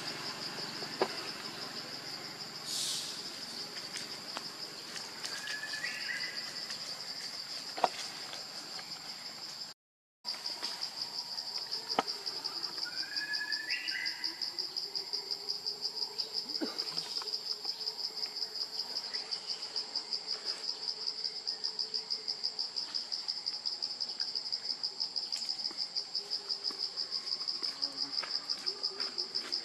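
Steady chorus of insects, a high, fast-pulsing buzz, broken by a brief gap about ten seconds in. Two short rising bird chirps and a few sharp clicks stand out above it.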